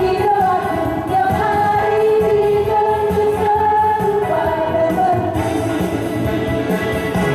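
Christian worship song with a singing voice holding long notes over full backing music.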